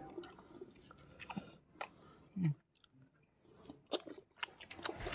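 Faint scattered clicks and light taps, with a short low hum of a voice about two and a half seconds in.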